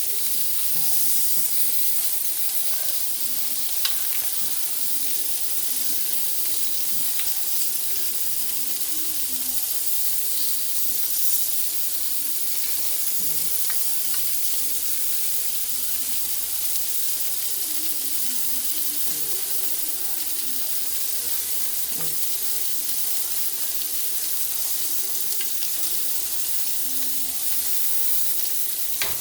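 Chicken thighs sizzling on an electric indoor grill, a steady hiss of fat frying, with a sharp click about four seconds in and another near the end.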